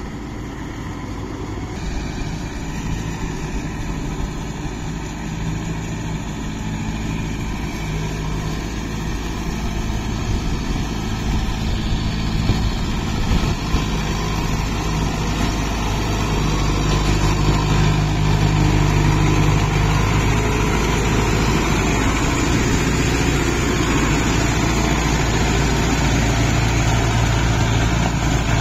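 Kubota tractor's diesel engine running steadily as the tractor pulls a rotavator through mud, getting louder over the second half as it comes close.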